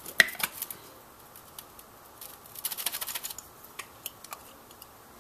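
Small metal parts being handled on a metal workbench: a sharp click just after the start, then a run of light ticks and taps about two to three and a half seconds in, with a few single ticks later. These are an aluminium carburetor body and its small screws being moved and set down.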